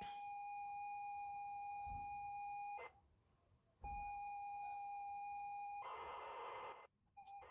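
ZX Spectrum cassette loading signal played off tape: a steady high pilot tone that stops near 3 s, returns about a second later, then turns into about a second of harsh data warble before cutting off. This is the SpecDrum software loading into a ZX Spectrum 48K.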